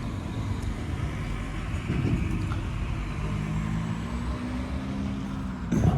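Car on the move: a steady low engine drone and road rumble, the engine note shifting slightly in pitch partway through.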